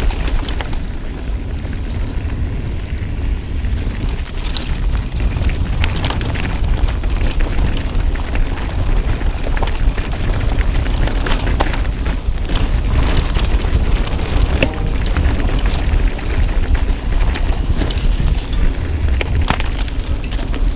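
Wind buffeting an action camera's microphone as a mountain bike rides downhill, with frequent clicks and rattles from the bike on a rocky dirt trail.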